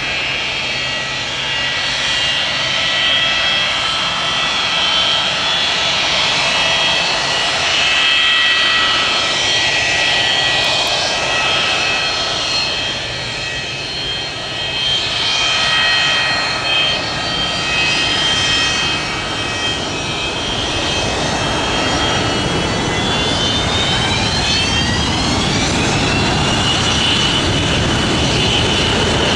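Boeing 727-200's three Pratt & Whitney JT8D turbofans running with a steady high whine over a rushing roar as the jet taxis onto the runway. Over the last five seconds or so the whine rises in pitch and the rumble grows as the engines spool up for take-off.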